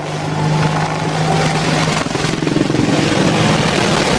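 Helicopter flying close by: loud, steady rotor and engine noise with a low hum underneath.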